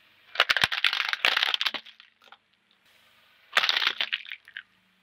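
Car tyre crushing something brittle under its weight: two bursts of crunching and cracking, the first lasting about two seconds, the second starting about three and a half seconds in.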